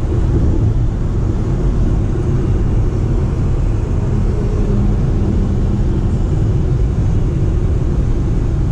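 Steady low road-and-tyre rumble heard inside the cabin of a Honda City e:HEV hybrid sedan cruising at highway speed.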